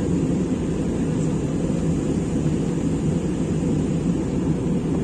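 Aircraft cabin noise in flight: a steady, deep rush of engine and airflow noise that does not change.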